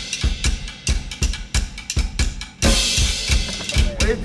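Background music: a fast, steady drum beat of kick, snare and cymbals.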